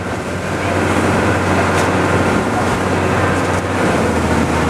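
Outrigger boat's engine running steadily at cruising speed, with wind and water rushing past the hull.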